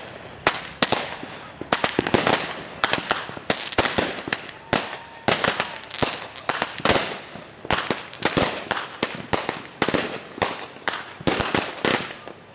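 Fireworks going off in rapid succession: a steady barrage of sharp bangs, several a second at times, each with a short fading tail.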